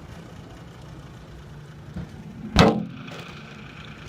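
A steady low rumble with a small click about two seconds in and a sharp, loud knock about half a second later.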